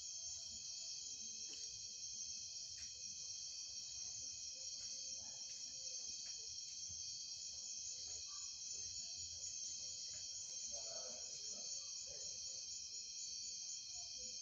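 A steady, high-pitched chorus of insects, unbroken throughout, with a few faint short sounds in between.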